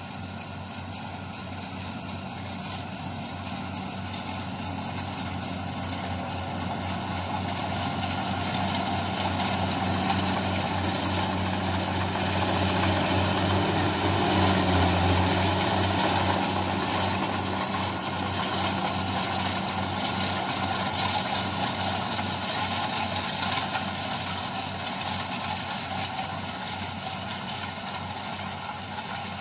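Kubota tracked rice combine harvester running steadily as it cuts and threshes rice, its diesel engine hum growing louder as it passes close in the middle, then fading as it moves away.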